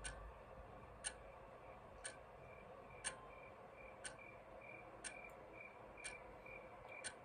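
A clock ticking faintly, once a second, with a faint high pulsing tone over it from about a third of the way in.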